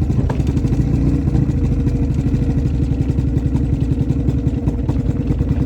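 Outboard motor running on its own after a fresh start, its firing pulses rapid but a little uneven, spitting and sputtering some after sitting unused.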